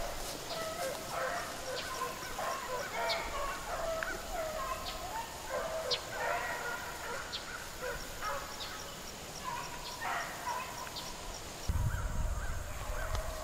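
A pack of beagles baying as they run a rabbit: many short, overlapping calls from several hounds at once. A low rumble comes in near the end.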